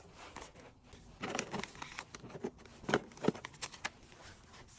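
Small items and packaging handled by hand: soft rustling with scattered light taps and clicks, the sharpest taps about three seconds in.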